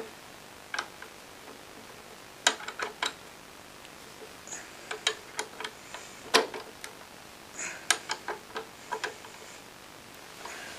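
Drill press chuck being tightened by hand onto a shaft: about a dozen light clicks and knocks at irregular intervals.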